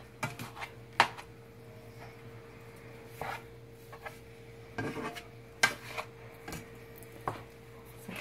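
A utensil scraping and knocking against a frying pan, breaking up ground beef browning with chopped vegetables, in irregular strokes. A steady low hum runs underneath.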